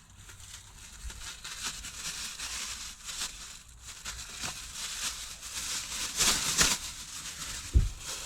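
Rustling and crinkling of a waterproof car trash can being handled and pressed into place, growing louder for about half a second around six seconds in, then a dull thump near the end.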